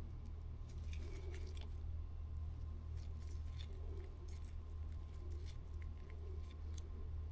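Faint, scattered metallic clicks and ticks of needle-nose pliers working a small ring onto the eye of a little resin-printed fishing lure, over a steady low hum.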